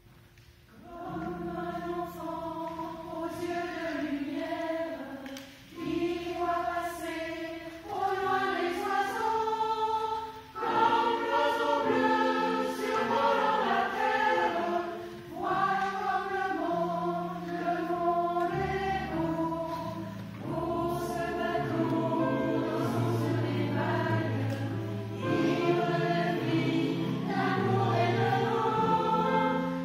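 Mixed choir singing a French song with piano accompaniment, the voices coming in about a second in.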